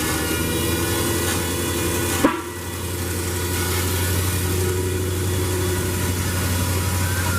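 Vehicle engine running steadily with a low hum, with one sharp knock about two seconds in.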